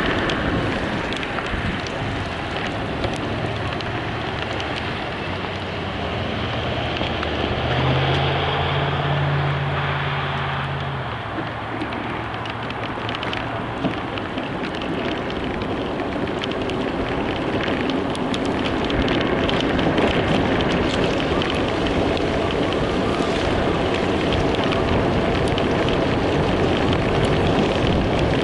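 Steady road and wind noise of a moving car, with a low engine drone swelling for a few seconds about a quarter of the way through.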